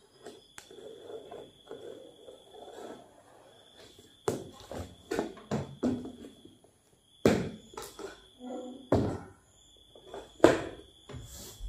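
Large cardboard carton being handled and opened by hand: a string of sharp knocks and thumps on the cardboard, with rustling of the flaps and packing between them and the loudest knock near the end.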